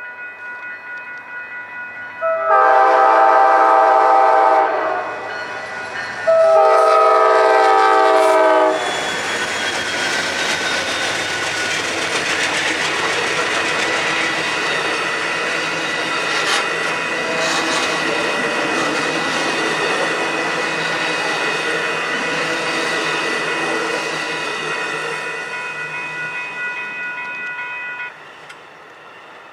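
Diesel locomotive sounding two long horn blasts with its bell ringing steadily, then the train passing close by with loud wheel and rail noise and clickety-clack. The passing noise cuts off suddenly near the end.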